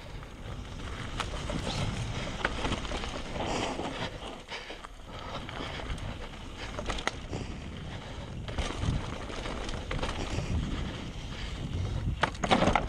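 Mountain bike ridden fast down a dirt singletrack: wind buffeting the microphone, tyres on dirt and the bike rattling and knocking over the bumps. Near the end there is a loud clatter as the wheels roll onto a wooden ramp.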